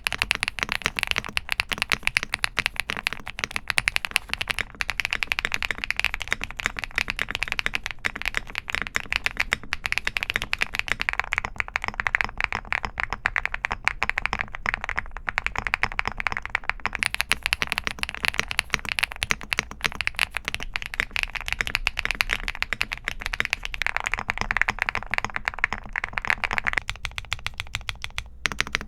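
Fast, continuous typing on a Bridge75 mechanical keyboard: dense, overlapping keystroke clacks with no pauses. The character of the clacks shifts a few times, about eleven, seventeen, twenty-four and twenty-seven seconds in.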